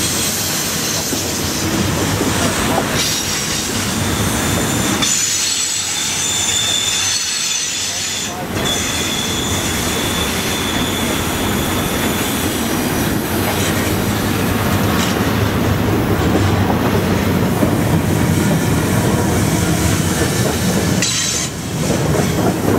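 Freight train cars rolling past at track speed: a loud, steady rumble and clatter of wheels on rail, with high-pitched wheel squeal coming and going, strongest a few seconds in.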